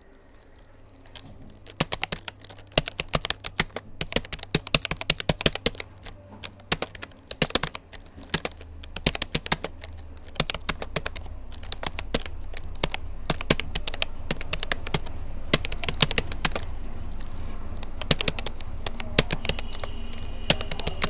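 Rapoo computer keyboard being typed on at a steady practice pace, a dense run of irregular key clicks after a short pause at the start. A low steady hum grows louder about halfway through.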